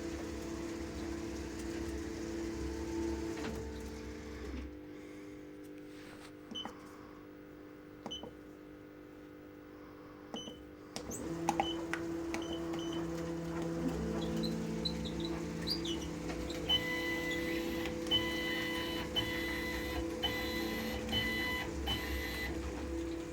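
1000×1500 CNC machine's motors running with a steady whine that changes pitch in steps as the axes move, quieter for a few seconds in the middle with a few clicks. Near the end, high tones chop on and off rapidly.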